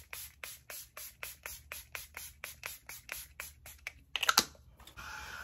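Give Them Lala Do You Boo setting spray pump bottle spritzed rapidly at the face, about four short mist sprays a second, followed by a louder burst of noise about four seconds in.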